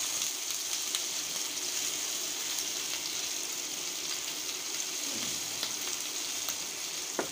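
Sliced onions sizzling in hot oil in a frying pan as they are fried towards light brown: a steady hiss with small scattered crackles.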